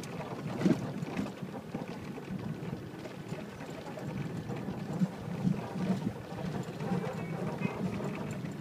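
Car driving slowly on a rutted dirt road, heard from inside the cabin: a steady rough rumble of tyres and suspension, with an occasional knock from a bump, one loud about a second in.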